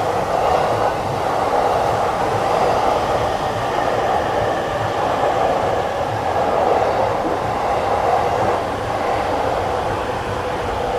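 Electric train running along the tracks past the station platform: a steady rolling noise from wheels on rail, mixed with wind buffeting the microphone.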